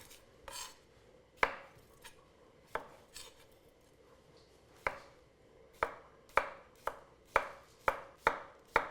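A knife slicing cucumber on a cutting board, each cut ending in a sharp knock on the board. A few scattered cuts come first, then a steady run of about two cuts a second.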